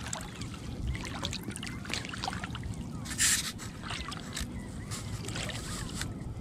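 Shallow water sloshing and splashing around a person's legs as they wade, with small irregular splashes and one brighter splash about three seconds in.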